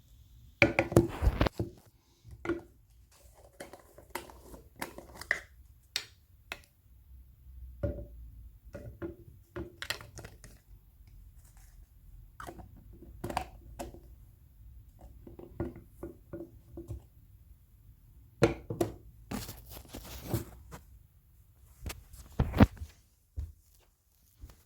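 Irregular clicks, taps and crinkles of things being handled, with louder clattering clusters about a second in and twice near the end.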